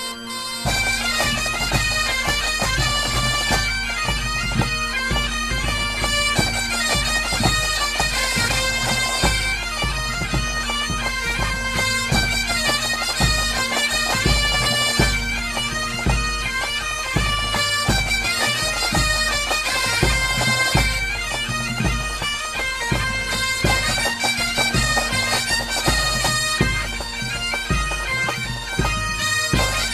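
Background music: a bagpipe tune over a steady drone, with a low pulsing beat coming in about half a second in.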